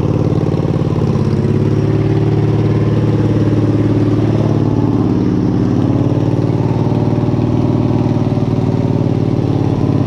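Wheel Horse garden tractor's engine running steadily, its pitch wavering slightly up and down.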